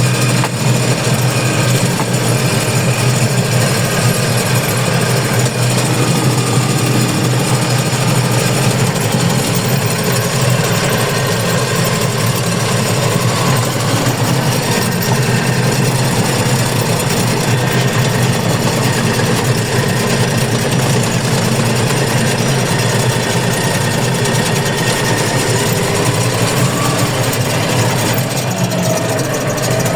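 Engine of peat-harvesting machinery running steadily, a constant low drone with mechanical rattle.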